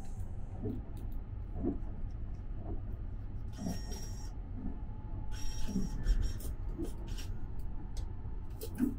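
Motorized shower-card reader briefly whirring twice as it draws in and then pushes out a shower card, over the steady low rumble of the moving sleeper train.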